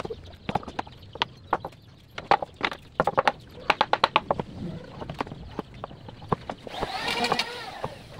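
Claw hammer striking a wooden board in quick, irregular runs of sharp taps.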